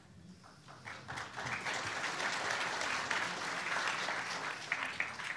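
Audience applauding. It swells up about a second in, holds steady and dies away near the end.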